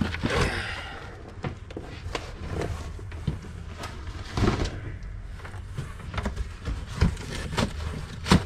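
Cardboard boxes and plastic air-pillow packing rustling and scraping as a parts box is lifted out of a larger shipping box, with light thumps of cardboard being handled and a sharper knock near the end.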